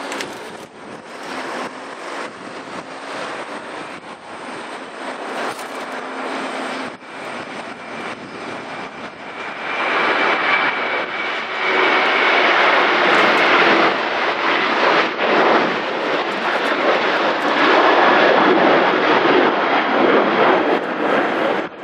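Boeing 737-800's two CFM56-7B turbofan engines at takeoff thrust through the takeoff roll, lift-off and climb-out. It is a steady jet engine noise that grows much louder about ten seconds in as the airliner rotates and passes.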